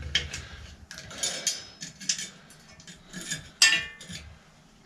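Bicycle chain clinking and rattling as it is laid back onto the chainring by hand: a series of light metallic clinks, the loudest a little over three and a half seconds in.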